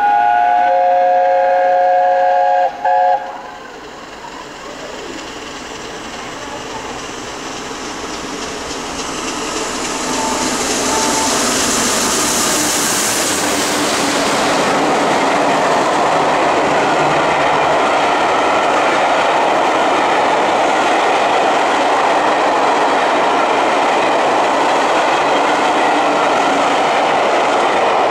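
A steam locomotive's whistle sounds as a chord of several notes for about three seconds, with a brief break just before it ends. Then the train's noise builds over about ten seconds into a steady, loud rush of wheels on rail as it runs past.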